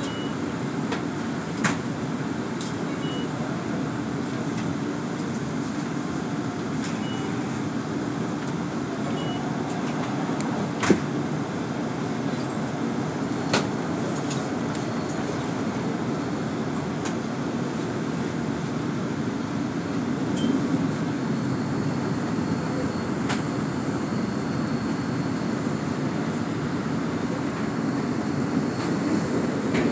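Inside a SEPTA Kawasaki light-rail trolley car standing at an underground station: a steady hum from the car's ventilation and equipment, with a few short high beeps and several sharp clicks. About two-thirds of the way through it grows slightly louder and a thin high whine joins in.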